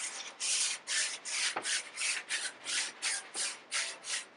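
A hand sliding up and down on a sheet of paper laid over a violin fingerboard: a papery swish with each stroke, about three a second.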